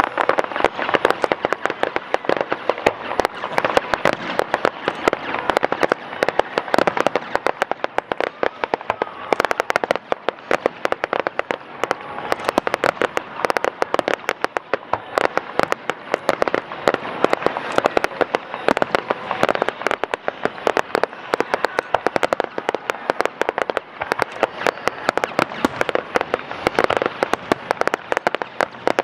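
Fireworks display: aerial shells bursting one after another, with dense, continuous crackling and popping throughout.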